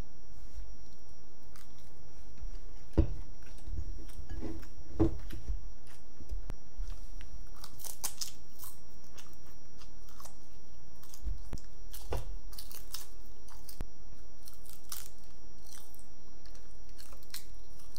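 Close-up eating sounds: a person chewing a mouthful of rice mixture eaten by hand, with many small wet mouth clicks and fingers scooping in an enamel bowl. Two soft knocks stand out about three and five seconds in.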